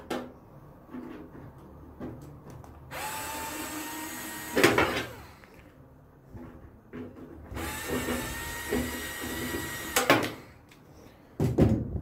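Parkside cordless screwdriver running twice, about two seconds each time, backing out two screws from the back of a computer case. Each run is a steady whine that rises briefly as the motor starts and ends in a sharp click.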